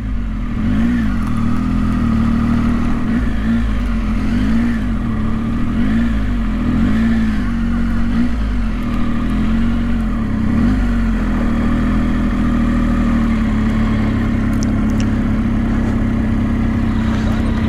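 Triumph adventure motorcycle's engine running at low speed in a slow roll, its pitch rising and falling gently with small throttle changes.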